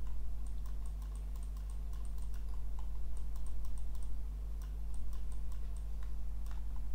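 Scattered light clicks and taps of a computer mouse and keyboard in use, over a steady low electrical hum.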